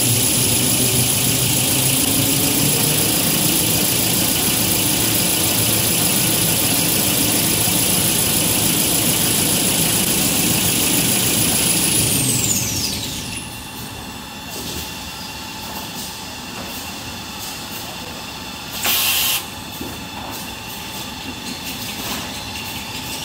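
Paper towel rewinding machine running at speed with a steady high whine, which glides down about halfway through as the machine winds down at the end of winding a log. A short loud hiss comes later, and near the end the whine begins to rise again as the next cycle speeds up.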